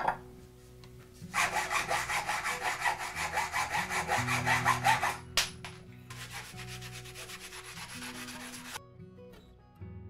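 Hacksaw sawing through a mountain-bike handlebar with quick, even strokes that stop about five seconds in, followed by a sharp click and then a few seconds of softer scraping. Background music with low notes plays underneath.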